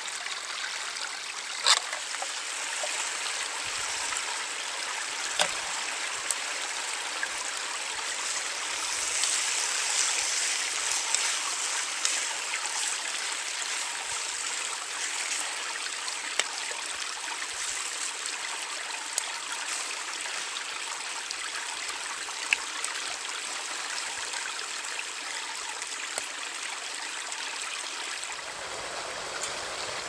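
Small forest creek babbling and trickling steadily, with a few sharp clicks now and then.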